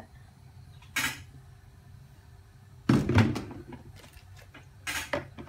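Knocks and clunks of cookware and containers being handled at a stove: one sharp knock about a second in, a louder cluster of thuds about three seconds in, and more near the end, over a faint steady hum.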